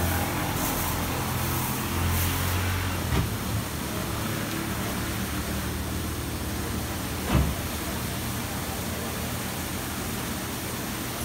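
A Kärcher CBC gantry car wash in its brush-wash stage: aftermarket foam brushes spin against a car, making a steady swishing, water-spraying wash with a low motor hum under it. Two sharp knocks come, about 3 seconds and 7 seconds in.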